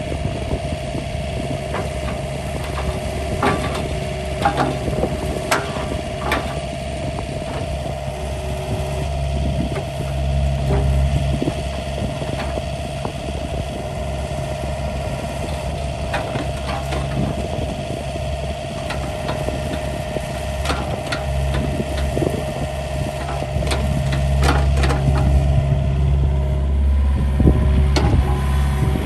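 2017 John Deere 50G mini excavator's diesel engine running as the boom, arm and bucket are worked. It swells louder in stretches over a steady whine, with scattered sharp knocks.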